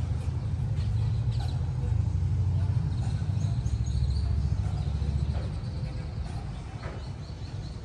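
Wind rumbling and buffeting on the microphone, a deep uneven rumble that eases toward the end.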